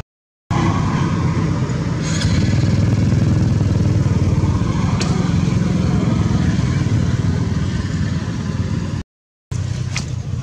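A motor vehicle engine running steadily nearby, a loud low drone. It cuts out to silence briefly near the start and again about nine seconds in, with a sharp click or two over it.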